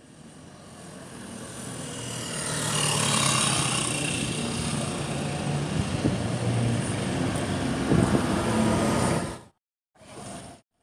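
Motor noise that swells over the first three seconds, stays loud and steady, then cuts off abruptly about nine and a half seconds in, with a short burst of sound just after.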